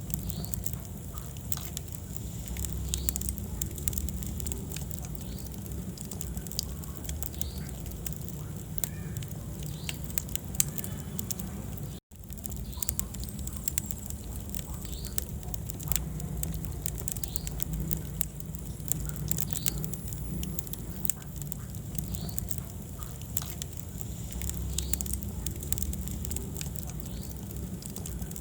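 Wood fire burning in a fireplace: a low steady rumble of flames with frequent sharp crackles and pops. The sound cuts out for an instant about twelve seconds in.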